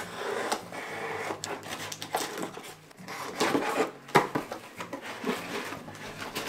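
Knife slicing through packing tape on a cardboard box, scratching and rasping, then the cardboard flaps being pulled open and rustling. A sharp knock about four seconds in.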